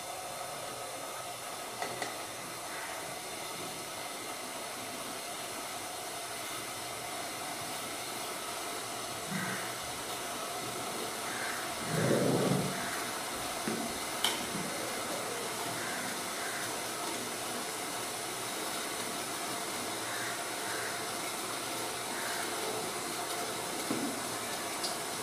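Steady hiss of water boiling and steaming in a stainless-steel idli steamer, with a few light clicks of a steel ladle against the idli plates and a brief dull thud about halfway through as batter is ladled into the moulds.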